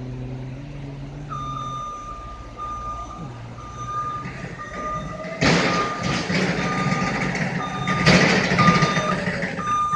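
Electric reach truck's travel alarm beeping, about one and a half beeps a second. About halfway in, a louder rushing noise with a low hum from the truck's drive joins as it comes closer, swelling again near the end.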